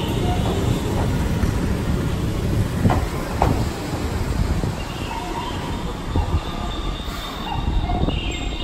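Keihan Keishin Line train running on the rails: a steady low rumble with wheels squealing in high thin tones at times, and a couple of sharp clicks about three seconds in.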